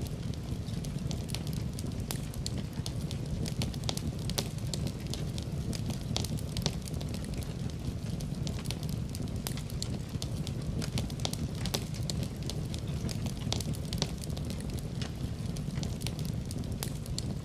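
Wood fire burning in a fireplace: a steady low rumble of flames with irregular sharp crackles and pops, several a second.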